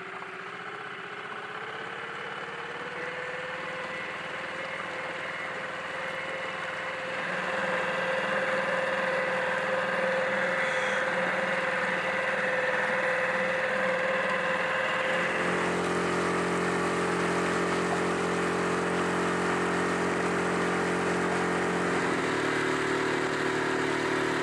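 Boat outboard motor running under way, its note rising over the first few seconds. It gets louder about seven seconds in and changes note about fifteen seconds in.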